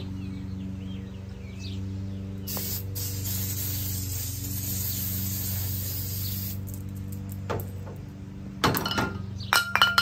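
Aerosol can of brake cleaner spraying in one long hiss of about four seconds. About two seconds after it stops come a few sharp metallic clinks.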